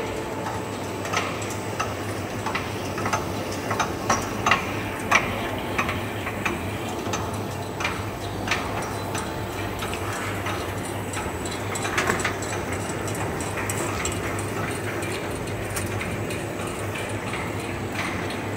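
Bouillon cube pressing and wrapping machine line running: a steady low machine hum with irregular sharp clicks and knocks from the moving parts, more frequent in the first half.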